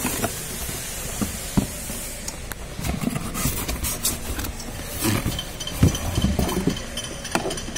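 Handling noise as a new heater core with rubber hoses is taken from its cardboard box: irregular rustles, scrapes and light knocks of cardboard and metal over a steady low rumble.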